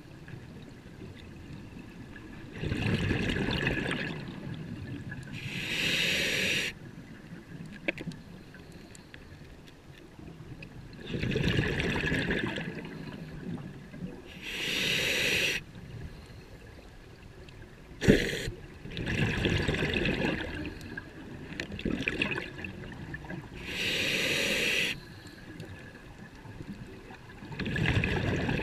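Scuba diver breathing through a regulator underwater: a short hiss on each inhale, then a longer low bubbling rumble of exhaled bubbles, about three slow breaths in all. A single sharp knock comes about two-thirds through.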